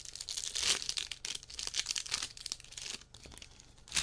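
Plastic trading-card pack wrappers crinkling and tearing as they are opened by hand, in irregular spells of crackling.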